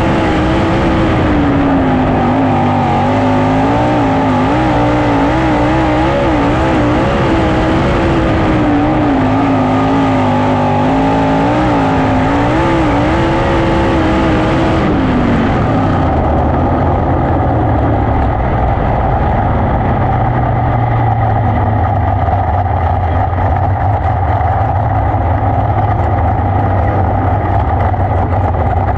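410 sprint car's V8 engine heard from on board at racing speed, its pitch rising and falling lap after lap. About fifteen seconds in the revs drop off to a low, steady run as the car slows off the track.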